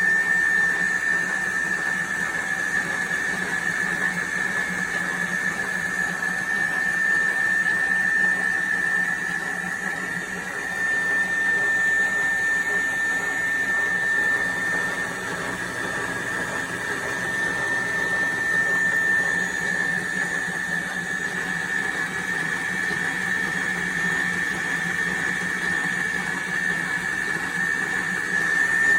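Electric stand mixer's motor running steadily, with a constant high-pitched whine over a lower hum.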